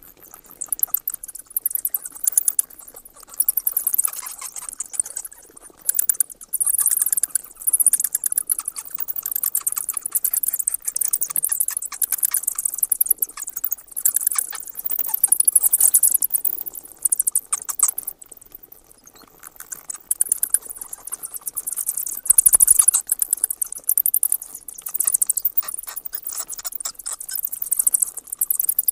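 Bats squeaking and chattering: rapid trains of very high-pitched chirps and clicks in bouts of a few seconds, with a lull a little past halfway. A brief low bump comes about two-thirds of the way through.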